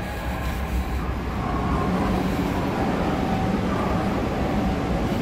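Steady low roar of a large hall's air handling, getting a little louder about two seconds in, with a faint steady hum over it.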